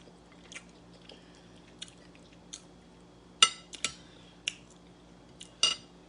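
Eating from a plate: about eight scattered sharp clinks and clicks of utensils and food on the dish, the loudest about three and a half seconds in, with faint chewing of stewed fish head.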